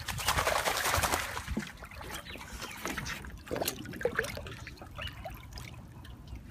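Pond water splashing and trickling around a golden retriever moving under a wooden pier. It is loudest in the first second or so, then settles to smaller scattered splashes and gurgles.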